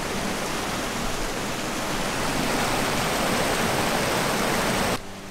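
Mountain river rushing and spilling over a small log weir: a steady, even sound of running water that cuts off abruptly about five seconds in.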